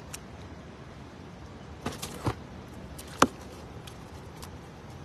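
Knocks and slaps of tilapia being worked out of a cast net and dropped into a foam box: a short cluster about two seconds in, then one sharp knock a little past three seconds, over steady background noise.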